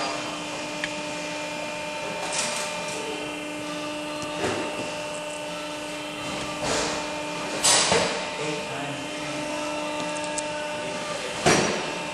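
Barwell ECO Plus rubber preforming machine running while it makes silicone O-ring preforms: a steady hum of several held tones, broken by about five short noisy bursts at uneven intervals, the two loudest in the second half.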